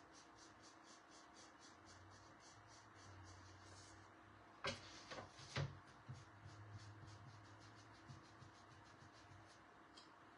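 Faint, quick scraping strokes, about four a second, of a Tim Holtz distressing tool rubbing along the painted edge of a glass jar to wear back the paint, with a couple of louder knocks near the middle.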